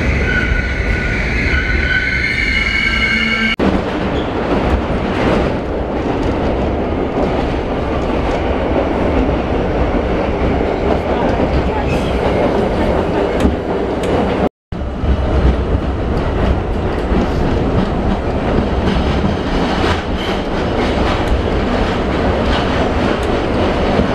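New York City subway train arriving at a station platform, its wheels squealing in several high steady tones for the first few seconds. It then changes to the steady rumble and rattle of a subway car in motion, heard from inside the car.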